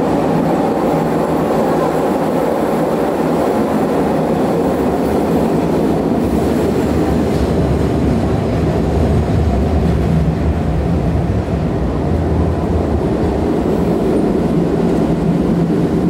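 Milan Metro line M3 train running through the tunnel, heard from inside the car: a steady, loud rumble of wheels on rails and traction motors, with a low hum that swells in the middle.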